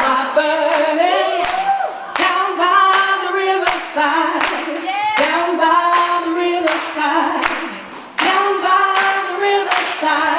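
Several voices singing a gospel spiritual a cappella in harmony, with hand claps keeping the beat about twice a second.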